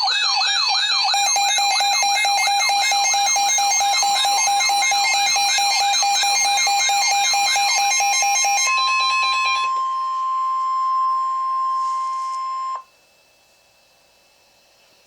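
Emergency Alert System alert tones for a severe thunderstorm warning. A loud warbling siren-like tone sweeps up and down about three times a second over steady high tones for about nine seconds. A single steady tone, the Weather Radio warning alarm, then sounds for about four seconds and cuts off abruptly, leaving faint hiss.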